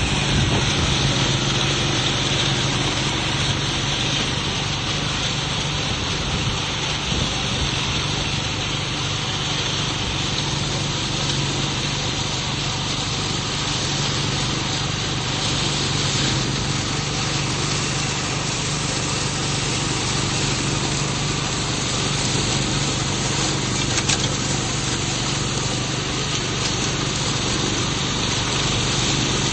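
Tow-behind flail mower with its own 15 hp gasoline engine, running steadily while mowing: a continuous engine drone under a dense whirring noise that hardly changes.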